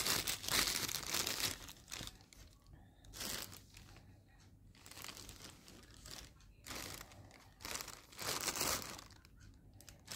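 Thin plastic carrier bag crinkling and rustling as it is handled, in a series of bursts. The loudest come in the first second or so and again about eight seconds in.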